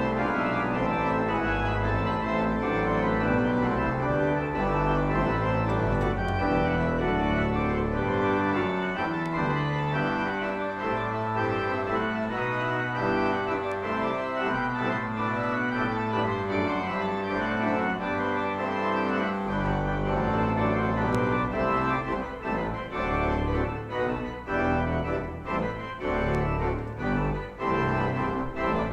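Church organ playing held chords over deep bass pedal notes. After about 20 seconds the chords become shorter and more detached. This is organ music opening the service.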